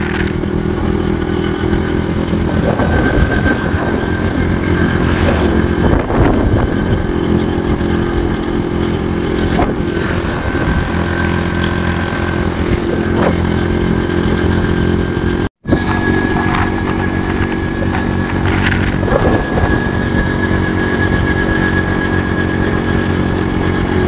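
Motorcycle engine running steadily at cruising speed, heard from on the moving bike. The sound drops out for an instant about two-thirds of the way through.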